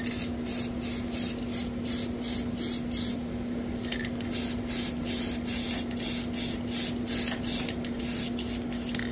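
Aerosol spray paint can hissing in many short bursts, a few a second, with some longer passes, over a steady low hum.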